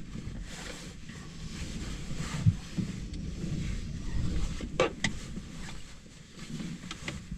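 Wind buffeting the microphone in an uneven low rumble, with a few sharp handling knocks about five seconds in and near the end.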